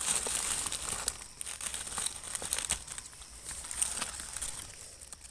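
Dry fallen leaves rustling and crackling as hands and a knife dig through the leaf litter to pull up mushrooms, with small snaps scattered through it. It is louder in the first couple of seconds, then fades.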